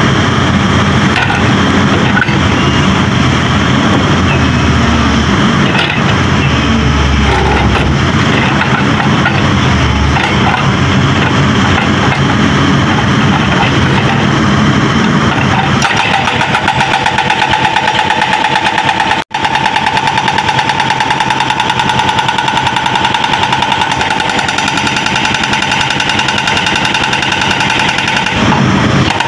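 Hydraulic breaker hammer on a Caterpillar excavator pounding boulders in rapid, steady strokes over the excavator's diesel engine. From about halfway a steady ringing tone rides on the hammering.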